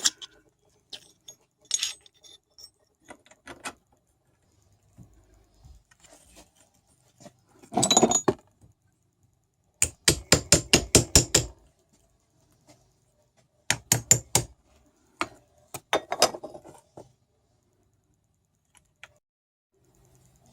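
Small metal parts and hand tools being handled: scattered clinks and knocks, with two quick runs of sharp clicks at about five a second, the longer one about halfway through.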